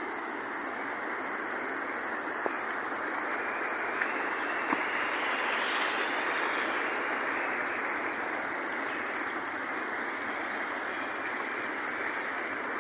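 Muddy rainwater runoff rushing down a channel as a steady hiss of running water, growing louder about halfway through.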